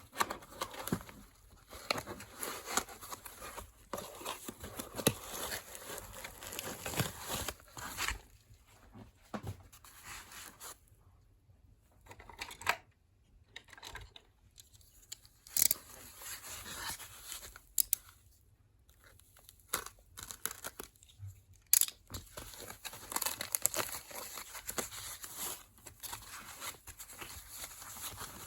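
Packaging being torn open and crumpled by hand as a parcel is unwrapped: irregular ripping and crinkling with sharp crackles, pausing twice for a few seconds midway.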